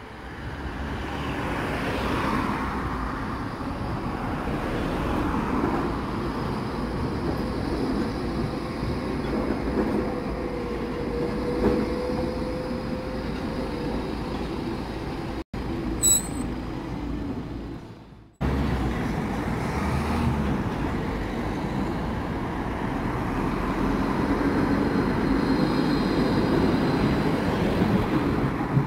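Trams rolling along street track, running steadily over the rails with road traffic going past. A thin steady whine comes through in the middle, and the sound grows louder near the end as a tram passes close by.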